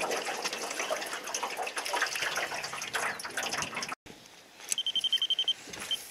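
Water splashing and lapping against a small boat's hull. After a sudden cut, a baitcasting reel gives a short, pulsing high-pitched whine lasting under a second.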